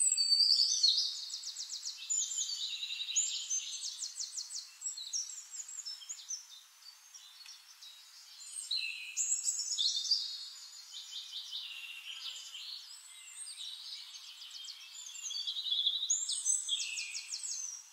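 Songbirds singing: fast trills and warbling phrases that come in three louder bouts, at the start, about nine seconds in, and again near the end.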